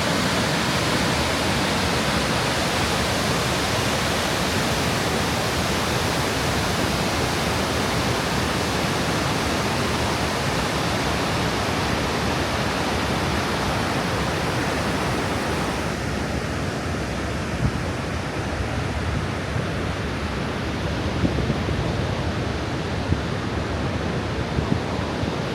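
Vøringsfossen waterfall: a loud, steady rush of falling water. About sixteen seconds in the sound turns slightly duller.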